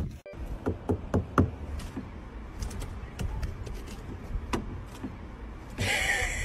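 Knocks and scrapes of a raccoon moving about inside a plastic trash bin, with several sharp knocks in the first second or so and faint clicks after. About six seconds in comes a sudden loud rasping hiss.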